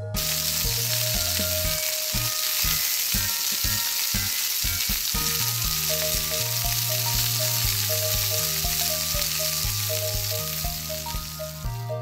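Steady sizzling of food frying in a pan, a dense hiss, over cheerful background music with a steady bass line.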